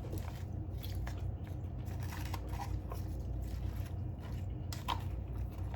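Close-up chewing and biting of food, with small crunches and faint clicks, over a steady low hum.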